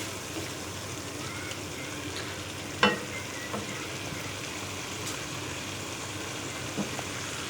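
Thick dal sizzling in its oil in a pot, being stirred, with one sharp knock about three seconds in. The water has cooked off and the oil has separated to the top: the sign that the dal is done.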